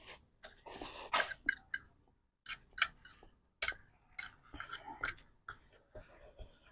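Mouth sounds of eating instant noodles: a slurp of noodles near the start, then chewing with many irregular sharp clicks.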